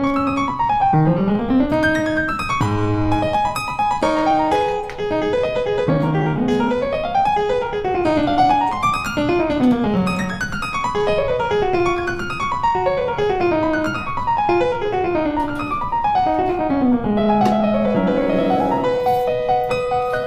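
Background piano music, with quick runs of notes rising and falling.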